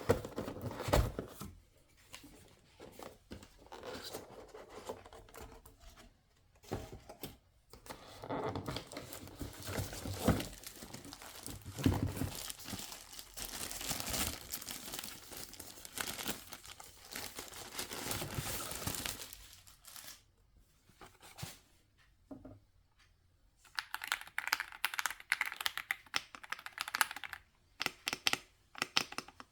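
Unboxing packaging being torn and its wrapping crinkled for about twenty seconds. From about four-fifths of the way in, a rapid run of key clicks follows as the Epomaker x Aula F99 mechanical keyboard is typed on.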